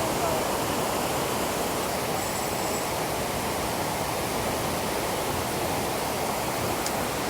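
Creek water rushing, a steady, even noise.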